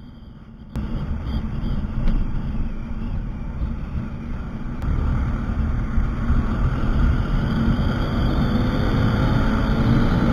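Motorcycle running at road speed, its engine and tyre noise mixed with wind rushing over the microphone. The noise jumps suddenly louder about a second in and then stays steady.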